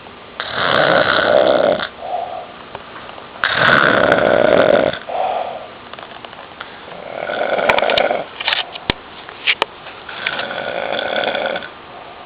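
A man snoring loudly in his sleep: four long snores about three seconds apart, each followed by a short softer breath. A few sharp clicks come between the third and fourth snores.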